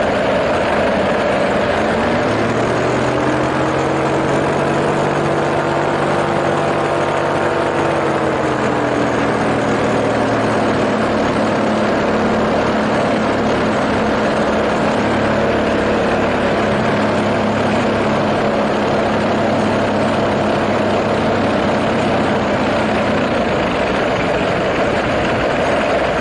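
A small engine drone in flight under heavy wind noise on the microphone. Its pitch rises about two seconds in, eases back down by about ten seconds, then holds steady.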